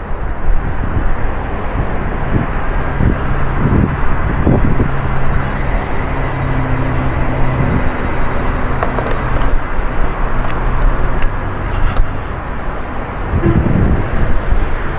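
Loud, steady roar of city traffic from a busy multi-lane highway far below, heard from high up.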